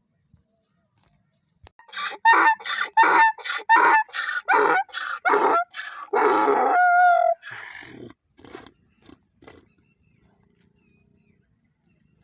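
Donkey braying: a run of loud rhythmic hee-haw pulses, about three a second, then one long held note, tailing off in a few weaker gasps.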